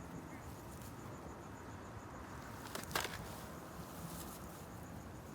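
Faint crickets chirping in a steady, rapid, even rhythm, with one short sharp noise about three seconds in.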